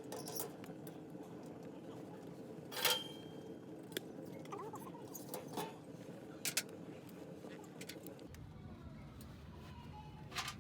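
Scattered light clinks and taps, the loudest a little under three seconds in, over a steady low hum.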